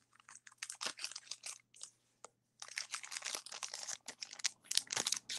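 Light crinkling and rustling of handled material, made of many small scratchy crackles that come thickest a little past the middle.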